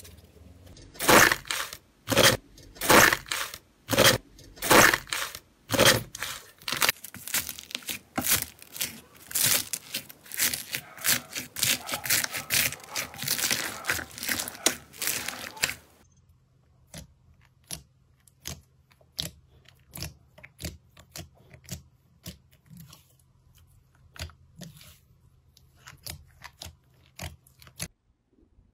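Hands pressing and squishing slime, including slime filled with foam beads (floam). First come loud crackling presses about once a second, then denser crunchy crackling. After about sixteen seconds only scattered faint clicks remain.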